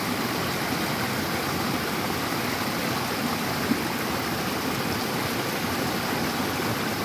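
Water of a small river rushing steadily, with one brief tap a little past the middle.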